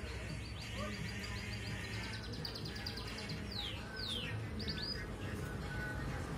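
Domestic canary singing: a rapid trill of short repeated high notes, then a few steep downward-sweeping whistles about three and a half seconds in, followed by a couple more short notes.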